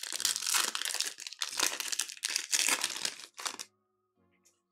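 Trading cards and their plastic pack wrapper being handled, crinkling in a run of rustling bursts that stop about three and a half seconds in.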